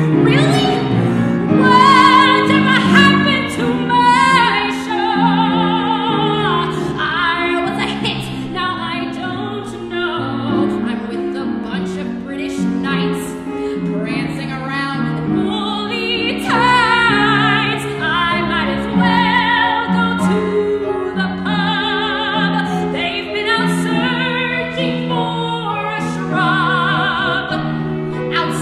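Solo soprano singing in full operatic voice, holding notes with a wavering vibrato, accompanied by a grand piano.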